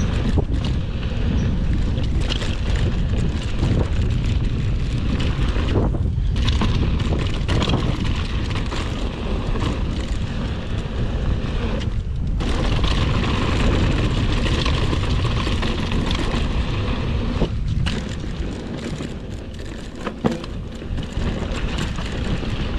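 Mountain bike descending a dusty dirt singletrack at speed: heavy wind buffeting on the microphone over tyres running on dirt and the bike rattling and clicking over bumps. The noise drops away briefly a few times.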